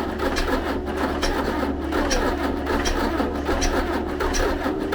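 T-40AM tractor's air-cooled diesel engine running at a steady idle, a low drone with a regular clatter about twice a second.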